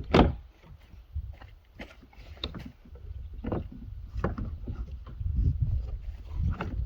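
Irregular knocks and bumps from parts of a plastic Keter shed being handled and fitted during assembly, the loudest right at the start, over a low rumble of wind on the microphone.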